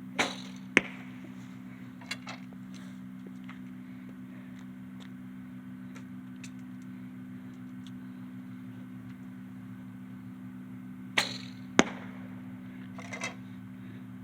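Two arrows shot from an old Bear Whitetail bow. Each shot is a sharp string release followed about half a second later by a crack as the arrow strikes the target at 30 yards. The second shot comes about eleven seconds after the first.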